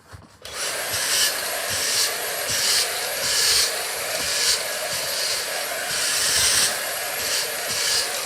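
Hoover vacuum cleaner switching on about half a second in and running with a steady high whine, its nozzle worked back and forth over a sandy car mat so the hiss swells and eases about once a second.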